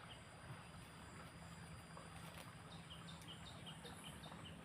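Faint outdoor background hiss, with a run of short, high, falling chirps repeating about four times a second in the second half.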